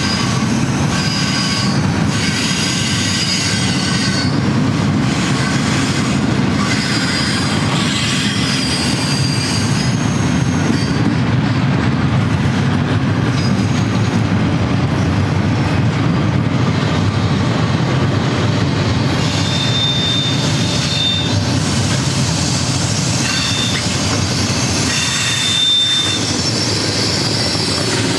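Double-stack intermodal train's loaded container well cars rolling past, a steady heavy rumble of steel wheels on rail. Thin, high-pitched wheel squeals come and go several times over it.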